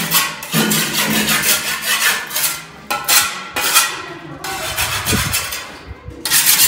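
Rough scraping or rubbing strokes, dense for the first three seconds and then in shorter separate strokes, with a dull thump about five seconds in.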